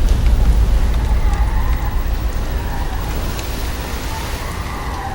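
Storm sound effects for a deluge: a steady rain hiss with a deep rumble that swells at the start, and faint wavering wails above it.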